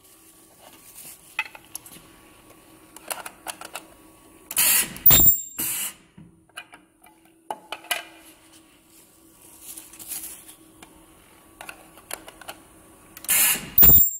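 Ultrasonic plastic welder sealing a graded-card slab case, cycling twice: about four and a half seconds in and again near the end. Each cycle brings a loud hissing burst as the horn presses down, a brief piercing high whistle from the ultrasonic horn, and a second shorter burst as it lifts. Between cycles come small clicks of the plastic case and jig being handled, over a faint steady hum.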